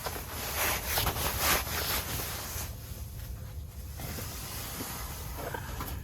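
Steady hiss over a constant low rumble, brighter during the first couple of seconds.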